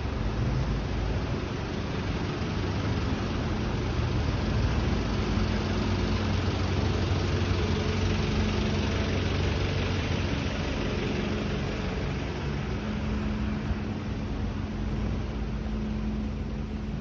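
Garbage truck's engine idling: a steady low drone, loudest in the middle and fading near the end.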